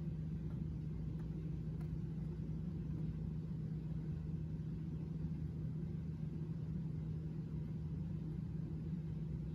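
Steady low hum with one constant tone and a rumble beneath it, even throughout: background room noise from an unseen machine.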